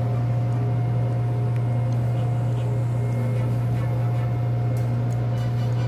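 Steady low hum of shipboard machinery, unchanging throughout, with a few faint ticks over it.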